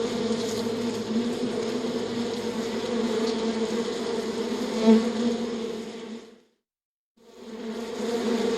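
Flying insect's wing buzz, a steady low hum that swells briefly about five seconds in, fades out to silence, then fades back in near the end.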